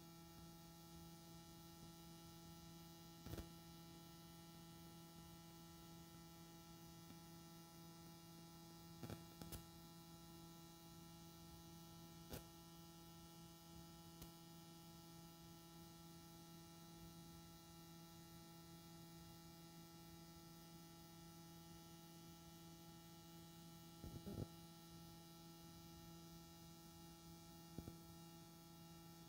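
Near silence: only a faint steady electrical hum with a few faint clicks, where the recording's audio has dropped out.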